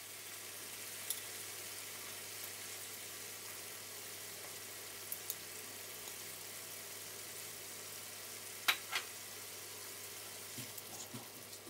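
Masala gravy sizzling steadily in a hot pan, its separated oil frying, with a few light clicks and pops, two of them close together near the end.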